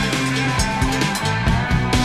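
Background rock music with electric guitar and a steady drum beat.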